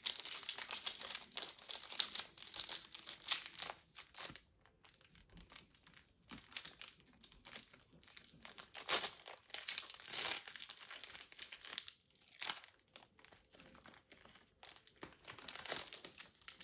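Foil Pokémon booster-pack wrapper crinkling and tearing as it is opened by hand, in irregular crackling bursts that are densest in the first few seconds and come again in the middle and near the end.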